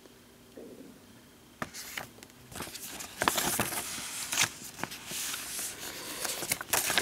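Folded paper setup guide being unfolded and handled: paper rustling and crackling, starting about one and a half seconds in and getting louder from about three seconds in.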